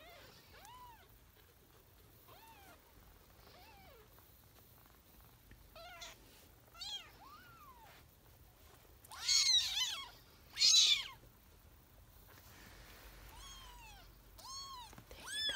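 Newborn kittens mewing over and over, each thin, high cry rising and falling in pitch. The two loudest, longest cries come a little past the middle.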